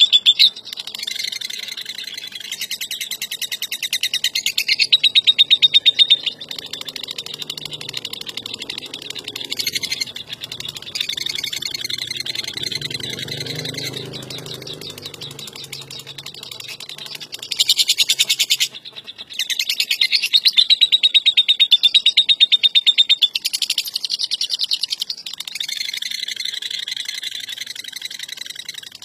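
Lovebird 'ngekek': a long, rapid, high-pitched chattering trill in extended runs, louder in stretches near the start and about two-thirds of the way through, with a brief break just before that second loud stretch.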